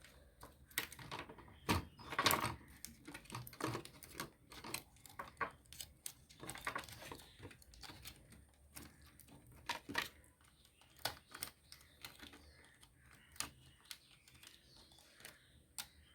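Irregular clicks, taps and knocks of small plastic and metal parts being handled, as the mini tower speaker's control board is fitted back in place.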